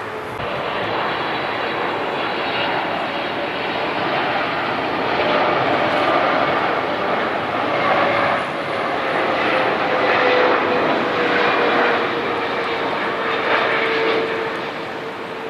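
A jet airliner on landing approach passing low overhead: a rushing engine noise that swells to its loudest through the middle and later part and eases near the end, with a whining tone that slowly drops in pitch as the plane goes by.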